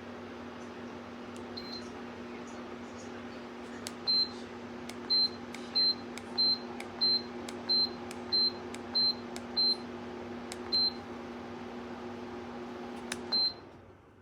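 Lasko tower fan's motor running with a steady hum. From about four seconds in, its control panel beeps about ten times in quick succession as buttons are pressed. After one last beep near the end, the fan shuts off and the hum stops.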